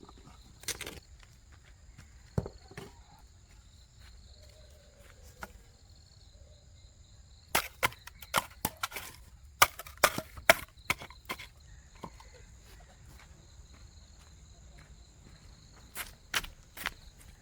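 Insects drone in steady high tones, broken by groups of sharp knocks or taps, the loudest in a cluster a third of the way in and a few more near the end.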